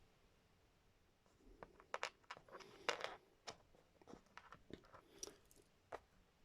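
Small plastic LEGO figures and pieces being handled and set down: a string of soft clicks, taps and rustles starting about a second in.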